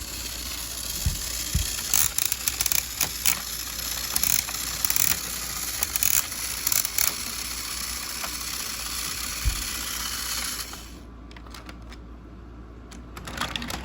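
Battery-powered Trackmaster toy engine running on plastic track: a steady motor whir with irregular clicks and rattles from the wheels and track, dropping away about eleven seconds in.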